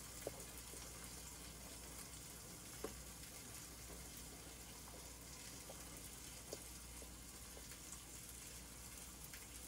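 Faint, steady sizzle of sausages frying in a pan, with a few soft ticks.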